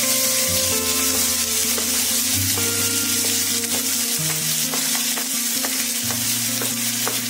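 Chopped onions hitting hot mustard oil in a steel kadhai and frying with a steady sizzling hiss, with a few light clicks.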